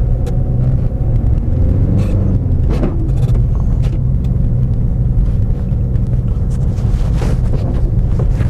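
Car being driven, heard from inside: steady low engine and road rumble with a constant hum, and a few short knocks.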